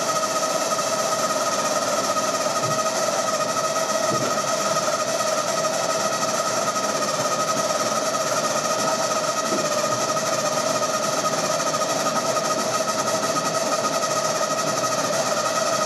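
Hydraulic pump running with a steady whine as it drives an FG-1D Corsair's main landing gear down during a gear-swing test, with a few faint low knocks from the gear as it moves.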